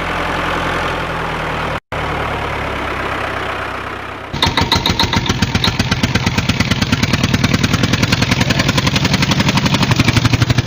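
Engine running: a steady hum at first, broken by a brief cut about two seconds in, then from about four seconds in a fast, even pulsing beat like an engine idling.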